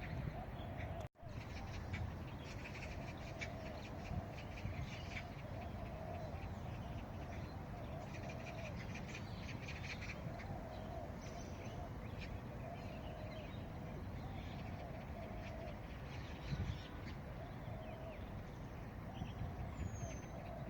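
Outdoor park ambience: birds chirping and calling over a steady low background rumble, with the sound cutting out for an instant about a second in.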